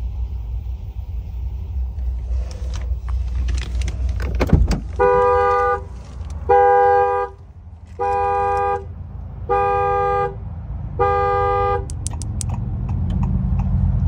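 A Honda car's dual-note horn, heard from inside the cabin, pulses five times as the car alarm sounds. Each blast lasts under a second, about one and a half seconds apart, after a thud and a few knocks against a low rumble.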